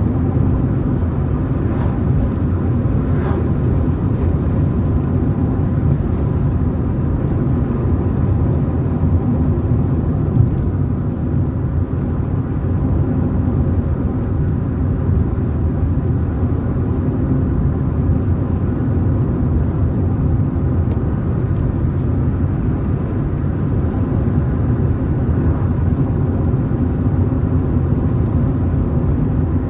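Car driving steadily along a road, a constant low rumble of engine and tyre noise, with a single short knock about ten seconds in.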